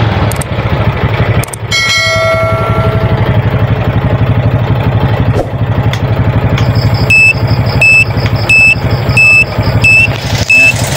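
Honda XRM motorcycle's single-cylinder four-stroke engine idling, with a short ringing chime about two seconds in. From about seven seconds on, the turn-signal flasher's buzzer beeps at about one and a half beeps a second, loud and high-pitched, a sign that the replaced flasher relay is working.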